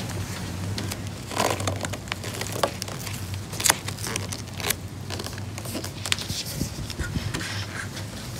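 Grained vinyl covering being stretched and pressed by hand over a dashboard pad: irregular crinkling and scraping with sharp clicks, the loudest a little past three and a half seconds in.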